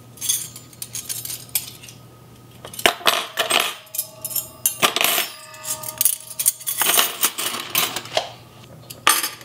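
Metal forks clinking against each other as a handful is sorted and laid into a cutlery drawer organizer, with many sharp clinks and a short ringing of metal midway.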